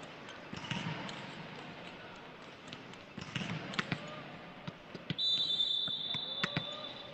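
Referee's whistle in a volleyball hall, a steady shrill blast starting about five seconds in and held for about two seconds, over scattered sharp thuds of a volleyball hitting the floor.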